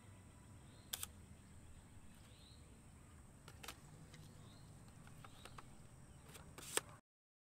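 Sharp mechanical clicks from a 4x5 Crown Graphic large-format camera being worked by hand on its tripod: one about a second in, another near the middle, and a louder cluster near the end. Under them is a faint, steady outdoor background.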